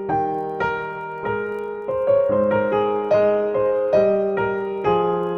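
Background piano music: an even, gentle run of single notes over sustained lower notes, each note struck and then fading.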